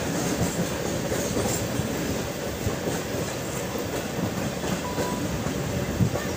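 Pak Business Express passenger train running along the track: a steady rumble of wheels on rail, with a single short knock about six seconds in.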